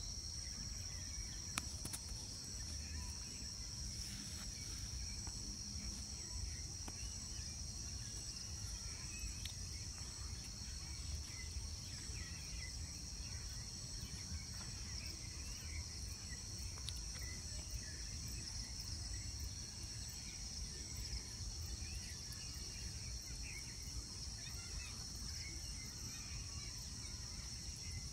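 Steady high-pitched insect trilling, with a low rumble underneath and faint scattered chirps.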